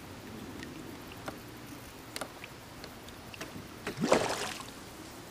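A hooked spotted bass splashing and thrashing at the water's surface about four seconds in, with a few faint clicks before it.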